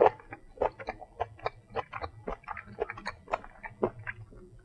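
Chewing a seared matsutake mushroom slice: a quick, irregular run of small mouth clicks and crunches, several a second, the sharpest right at the start.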